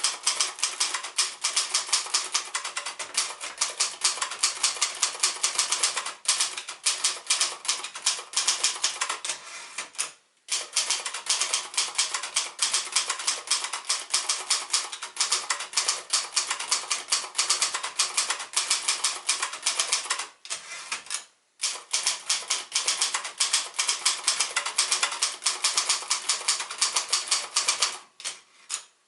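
A 1972 Royal Mercury manual typewriter, built by Silver-Seiko, being typed on in fast, continuous runs of keystrokes, with short pauses about ten and twenty-one seconds in.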